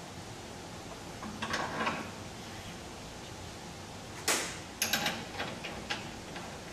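Metal adapters and cones being handled and slid onto the arbor shaft of a brake disc lathe: a scraping rustle, then a sharp metallic clack about four seconds in, followed by several lighter clicks.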